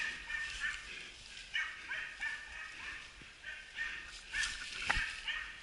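Hunting dogs baying on a boar drive: a string of faint, short barks in small clusters, with a single sharp knock about five seconds in.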